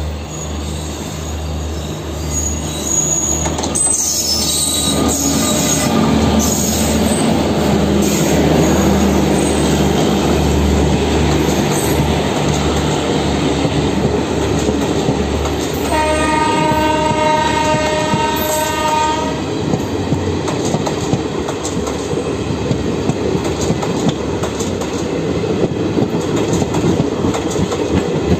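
Garib Rath express train with an electric locomotive approaching and running past at speed, its coaches' wheels rumbling steadily over the track. About halfway through a train horn sounds for about three and a half seconds.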